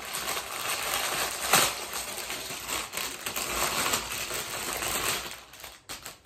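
Clear plastic packaging bag crinkling and rustling as it is handled and opened to pull an item out, a steady run of small crackles that dies away near the end.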